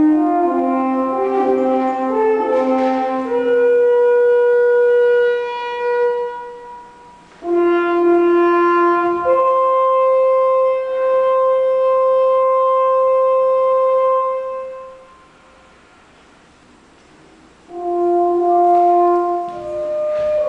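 Slow music of long held notes in a horn-like timbre, with a pause of about two seconds before a new phrase begins near the end.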